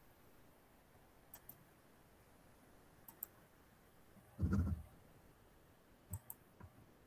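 Faint scattered clicks of a computer mouse, mostly in quick pairs, with one louder dull knock about four and a half seconds in.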